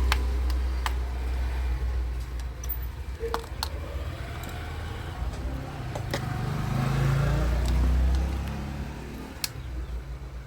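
A low rumble with a dozen or so sharp plastic clicks scattered through it, from a Nokia 105's casing being pried open with an opener tool.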